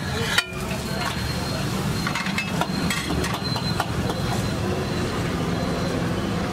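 Metal spatulas clacking and scraping on a flat iron griddle as an egg layer is flipped: one sharp clack about half a second in, then several lighter taps over the next few seconds, over a steady low background rumble.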